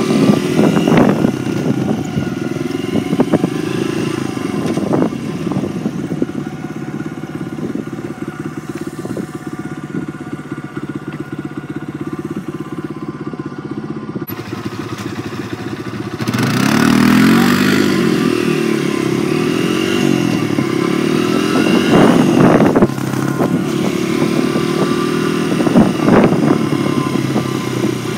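Dirt bike engine running under way, heard from on the bike: a steady pitch at first, then louder from a little past halfway, with the pitch rising and falling as the throttle is worked. A few sharp clatters are heard.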